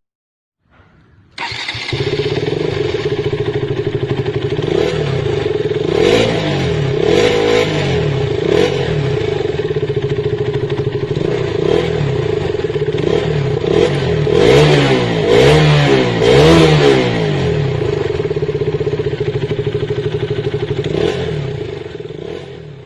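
KTM Duke motorcycle engine starting up after a moment of silence, then idling steadily. It gives a few quick throttle blips, then a cluster of revs later on, before fading out near the end.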